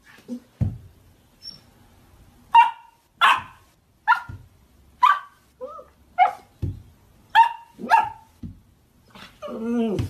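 A dog barking in short, sharp single barks, roughly one a second, with a few low thuds in between. Near the end comes one longer, drawn-out call.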